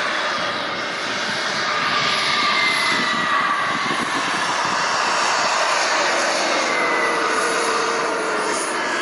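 Skymaster T-38 Talon RC model jet flying, its engine giving a steady whining hiss. The tones in it slowly fall in pitch as the jet passes.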